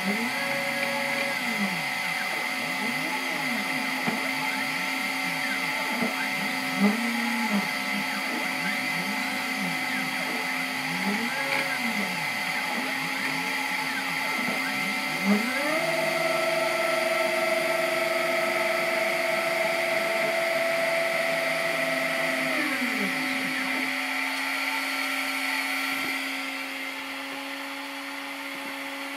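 Stepper motors of a CNC 3018 engraving machine whining as its laser head moves across the work, over a steady hum. The pitch rises and falls with each short move, and a longer steady pair of tones holds for several seconds in the middle. The sound quietens near the end.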